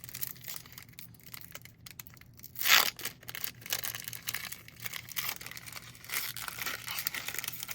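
A trading-card pack wrapper being torn open and crinkled by hand, a steady crackling with one louder rip about two and a half seconds in.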